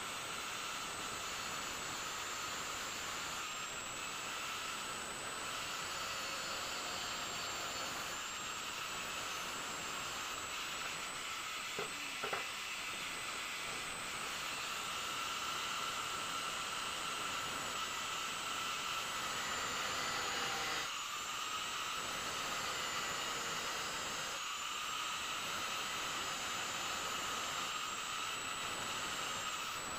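Electric angle grinder running steadily with a high motor whine, its disc grinding the steel of a kukri blade. The whine sags briefly in pitch twice past the middle as the disc is pressed harder into the steel, and two short clicks come about halfway through.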